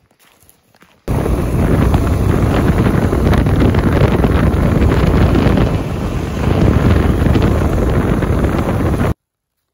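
A moving ATV: loud wind buffeting the microphone, with the engine running underneath. It starts suddenly after a second of faint footsteps on forest floor and stops abruptly near the end.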